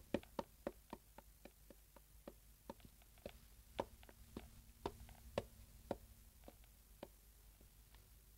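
Light footsteps on wooden floorboards and stairs, cartoon foley: quick taps at first, then an even pace of about two a second, ending about seven seconds in.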